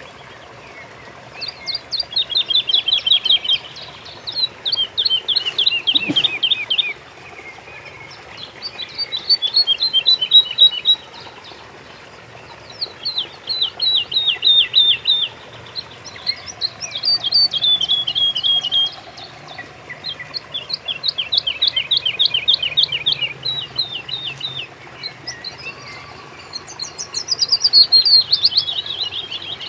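A songbird singing, repeating a phrase of rapid, quick downward-sweeping notes about two seconds long, with short pauses between phrases, over a faint steady background.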